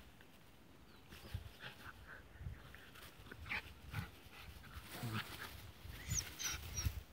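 Two small dogs play-fighting: a run of short, quick dog noises and scuffling, starting about a second in and going on in fits to the end.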